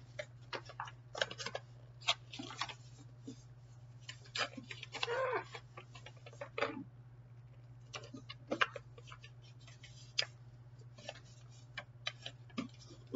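Wrapping paper rustling and crinkling with scattered clicks and crackles as a wrapped gift is carefully unwrapped, with a longer, denser rustle about five seconds in. A steady low hum runs underneath.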